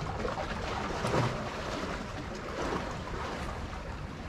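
Sea surf washing against reef rocks, with wind on the microphone; the wash swells a little about a second in.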